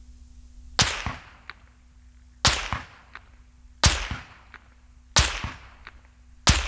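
Suppressed .308 rifle rounds fired from about 300 yards arriving at a muddy dirt target. Five sharp whip-like supersonic cracks come about a second and a half apart, each with fainter echoes and ticks after it. At this range the supersonic crack is heard more than the bullet striking the dirt.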